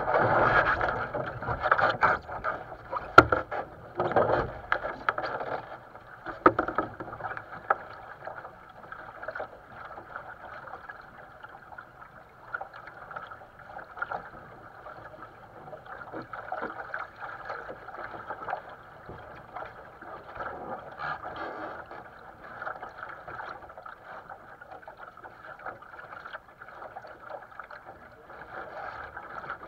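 Water rushing and splashing along the hull of a small sailboat moving under sail, heard from the deck. A few sharp knocks in the first several seconds, the loudest about three seconds in.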